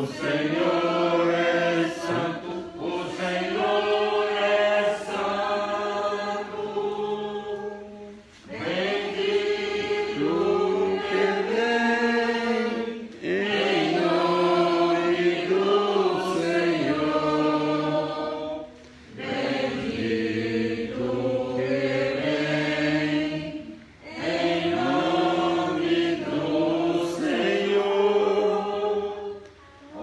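A small church choir singing a hymn in sung phrases of several seconds each, with short breaks for breath between them.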